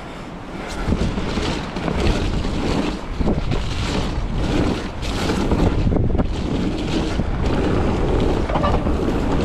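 Wind buffeting the camera microphone as a mountain bike rolls fast down a muddy dirt trail, with tyre noise and short knocks and rattles from the bike over bumps. It gets louder about a second in as the bike picks up speed.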